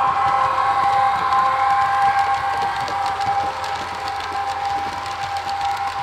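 Steady held tones played through a model train's sound-decoder speaker, loudest in the first half and easing toward the end, over a faint light clicking of model train wheels on the track.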